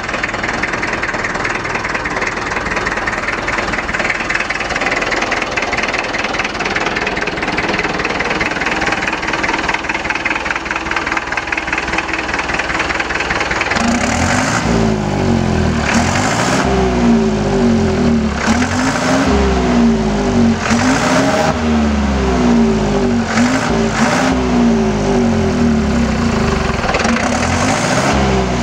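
The engine of an old International B-250 tractor fitted with a turbocharger, running steadily at first. About halfway through it is revved up and down again and again, its pitch rising and falling each time, with short hissing rushes between some of the revs.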